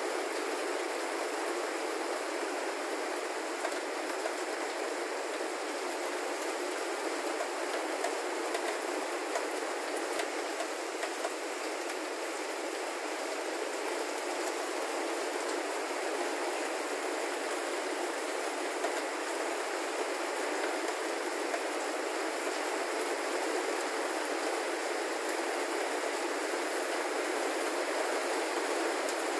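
Heavy rain falling steadily: an even, unbroken hiss of downpour.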